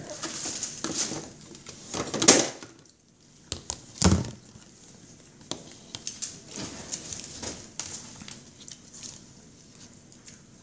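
Eating and food-handling noises: paper burger wrappers and fry boxes rustling, with a loud rustle about two seconds in and a knock on the counter about four seconds in.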